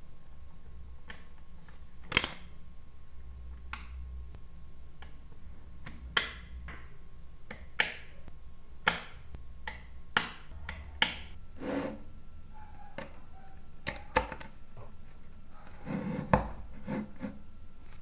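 Small metal magnetic balls clicking as they snap onto a block built of them: irregular sharp single clicks, with a few short rattling clatters of several balls at once.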